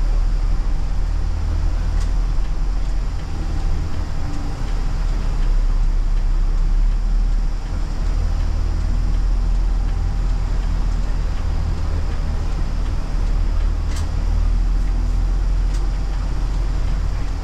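Steady low engine drone and road noise inside a city bus as it drives slowly through town, with a few sharp clicks about two seconds in and near the end.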